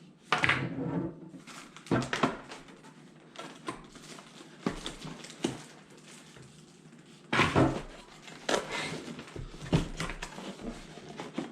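Bird feeder's box and packaging being handled during unpacking: scattered knocks, clicks and rustles, with a cluster of louder ones about seven to nine seconds in.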